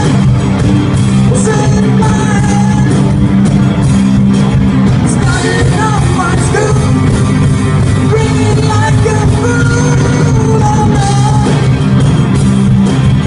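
Rock band playing live, with sung vocals over the full band.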